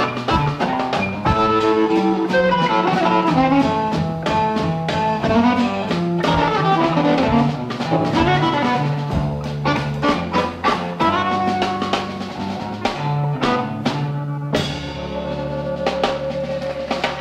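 Electric blues trio playing an instrumental passage: two electric guitars over a drum kit with a steady beat. The drumming thins out near the end, leaving held guitar notes as the music dies down.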